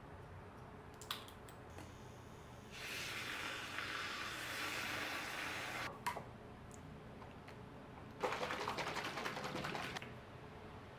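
A drink being mixed in a glass: a glass straw stirring and clinking against the glass in two spells, the second a fast run of small clicks, with a single click about a second in.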